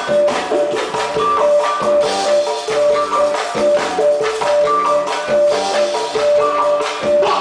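Music with a drum kit and shaker-like percussion keeping a steady beat under a repeating melodic line of short held notes.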